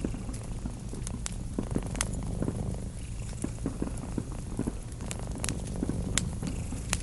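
A cat purring steadily, with the sharp pops and snaps of a crackling wood fire scattered over it.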